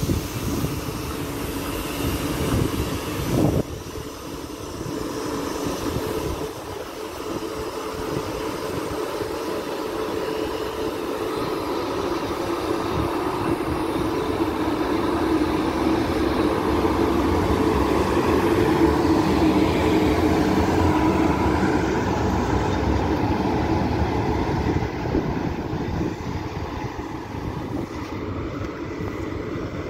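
A train running past, a continuous mechanical running sound with steady tones. It builds gradually to its loudest about two-thirds of the way through, then eases off slightly.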